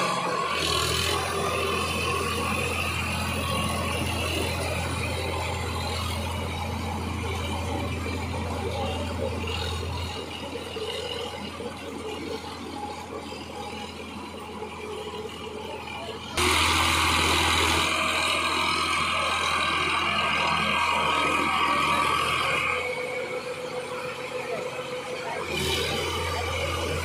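Sonalika DI 745 III tractor's diesel engine running steadily under load while its rear rotavator churns through flooded paddy mud. The level drops and jumps back suddenly a few times.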